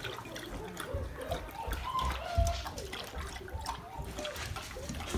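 Adult German Shepherd lapping water from a stainless steel bowl: quick, irregular wet laps and drips.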